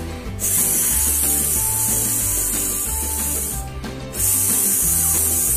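Two long hissing 'sssss' sounds from a woman's voice, the phonics sound for the letter S made like a snake's hiss. The first lasts about three seconds, and the second starts about four seconds in. Background music with low steady notes plays underneath.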